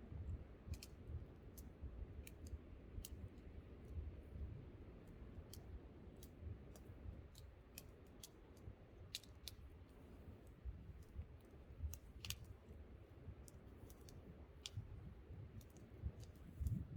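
Wood campfire crackling: sharp, irregular pops and snaps about one or two a second, over a low rumble of wind.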